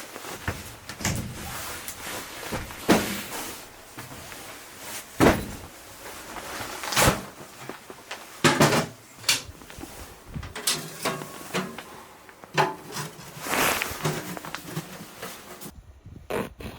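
A series of knocks, clicks and thumps with rustling between them, like gear being handled and set down, several sharp knocks standing out.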